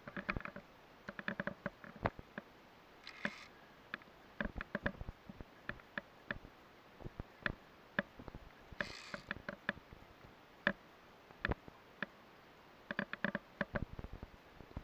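Irregular sharp clicks and knocks of metal climbing gear: carabiners and lanyard clips on a via ferrata's steel cable and rungs. Three short rustling scuffs come about three seconds in, about nine seconds in and near the end.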